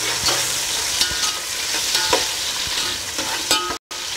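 Sliced onions sizzling in hot oil in a metal pot, while a metal spoon stirs them and clinks and scrapes against the pot. The sound cuts out for a moment near the end.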